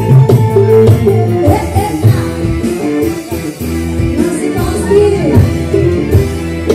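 Live band music played loud through PA speakers, with electric guitar and a steady beat.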